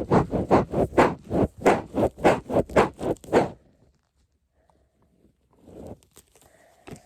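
Axolotl fidget toy with Orbeez being worked quickly by hand: a fast, regular run of rubbing or squishing strokes, about four or five a second, that stops about three and a half seconds in. A few faint handling noises follow near the end.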